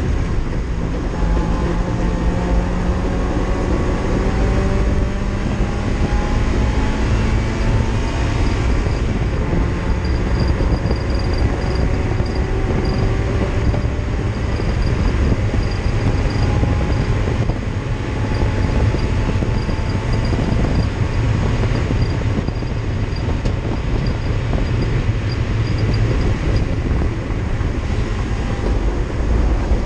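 Race car engine heard from inside the stripped, roll-caged cabin at racing speed, its pitch climbing repeatedly as it accelerates through the revs, over loud road and drivetrain noise.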